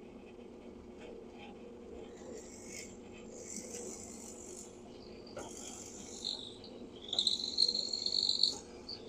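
Drill press with a 1/4-inch bit boring screw holes through a cedar keel: a steady low motor hum with short spells of high-pitched cutting whine as the bit feeds into the wood. The longest and loudest spell comes about seven seconds in and lasts about a second and a half.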